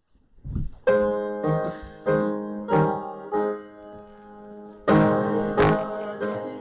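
Piano playing the introduction to a hymn: struck chords that start about a second in, each ringing and fading before the next, with a strong fresh chord about five seconds in. A low rumble comes just before the first chord.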